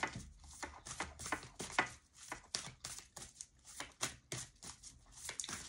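Tarot cards being shuffled by hand: an uneven run of soft slaps and clicks, about four a second.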